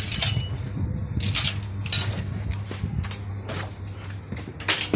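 Metal parts and tools clinking and clattering: several sharp clinks, the loudest just after the start and another near the end, over a steady low hum.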